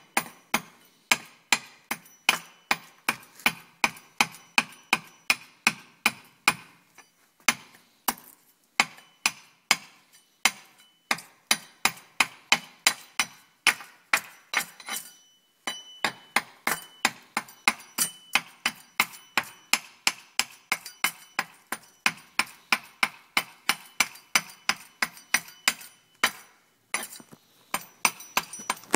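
Hatchet hewing down a wooden bow stave: sharp, evenly paced chopping strokes, about two a second, broken by a few short pauses.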